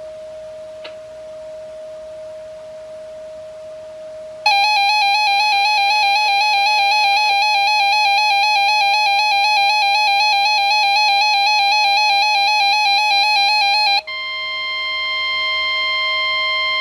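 A 12-262 weather alert radio sounds its loud, rapidly warbling alarm tone, starting about four and a half seconds in and lasting about nine seconds. It then cuts straight to the steady 1050 Hz NOAA Weather Radio warning alarm tone, which announces a new warning broadcast. Before the alarm there is only a faint steady tone under the radio hiss.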